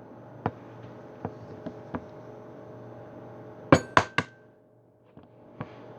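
Light knocks and clinks of kitchen utensils and dishes being handled, with two sharp glassy clinks close together just past the middle, over a faint steady hum. The sound cuts out for about half a second soon after.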